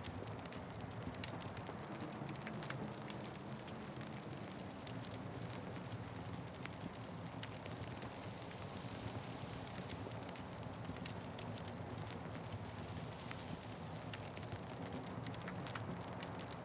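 Wood fire crackling, with scattered sharp pops over a steady low rumble and hiss.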